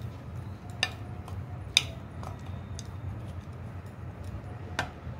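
A steel spoon clicks against a bowl while stirring a dry flour mix, three sharp clicks with the loudest about two seconds in, over a steady low hum.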